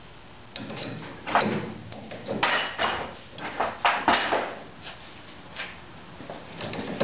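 Socket wrench running down the nuts on a trailer axle's U-bolts: a run of irregular metallic clicks and scrapes, busiest in the first four and a half seconds and then only occasional.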